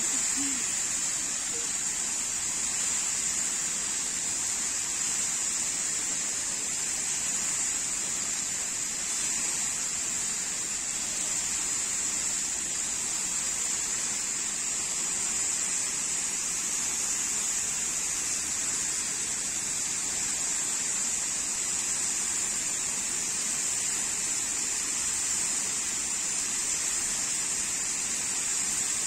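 Fountain jets spraying water high into the air and falling back onto a river: a steady, even hiss of spray.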